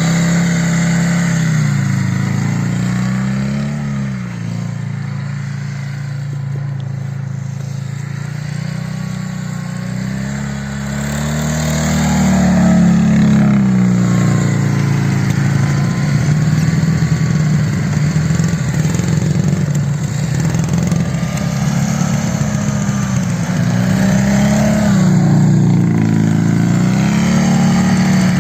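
Boxer-twin sidecar motorcycle engine running and revving up and down several times as it is ridden, its pitch rising and falling in long swells.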